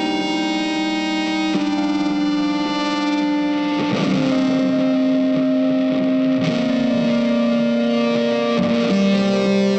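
Background music: slow, sustained guitar notes with effects and distortion, the chord changing every couple of seconds.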